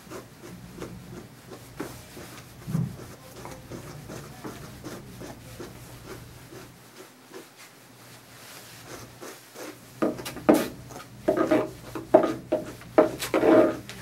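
A grooming brush stroked repeatedly through a Coton de Tulear's long coat, a run of short rubbing strokes that turns louder and quicker in the last few seconds.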